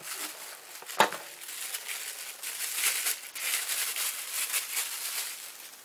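Packaging crinkling and rustling as a part is pulled out of a box and unwrapped, with one sharp click about a second in.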